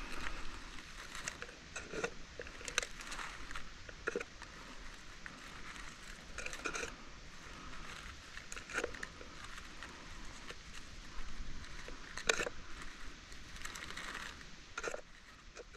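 Dry leaf litter rustling and crackling under a gloved hand as chanterelle mushrooms are picked from the forest floor, in irregular short crackles and clicks.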